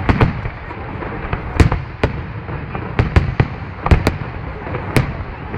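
Aerial fireworks shells bursting in an irregular string of about ten sharp bangs, several coming close together around the middle, over a continuous low rumble from the display.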